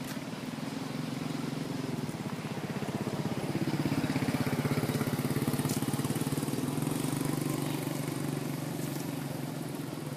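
A motor vehicle's engine running at a steady low pitch, growing louder to a peak about four seconds in and then slowly fading, as it passes by.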